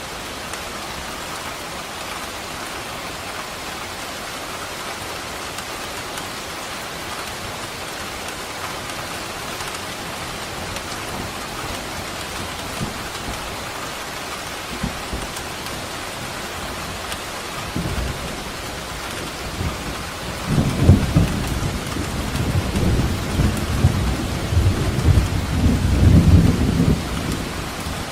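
Steady rain with a long, rolling rumble of thunder that builds about two-thirds of the way through, peaks and fades near the end.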